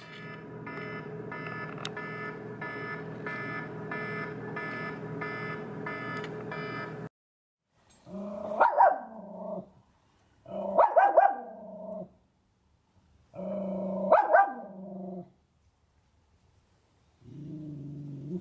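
Pet dogs barking in four short bouts, reacting to a neighbour's dog. They follow about seven seconds of background music with a steady pulse, which cuts off abruptly.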